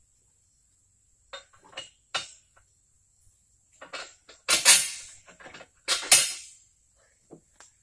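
Clatter and knocks of gear being handled in a utility cart's bed: a few lighter knocks, then two loud clanks with a short ringing tail, about four and a half and six seconds in.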